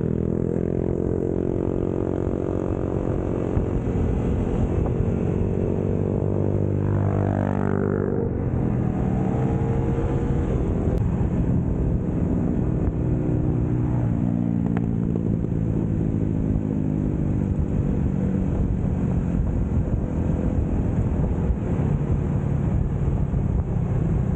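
Motorcycle engine running while being ridden at road speed, its pitch rising and falling repeatedly with the throttle and gear changes.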